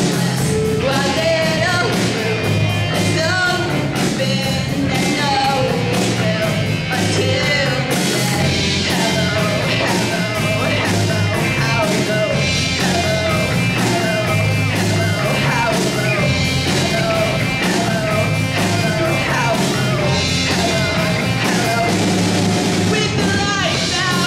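Live rock band playing a song: a female lead singer over drums, electric guitar and bass guitar, loud and steady throughout.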